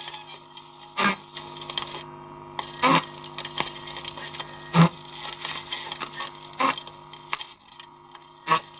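Gramophone record player with a broken stylus needle: a steady hum with a short scratchy thump repeating about every two seconds.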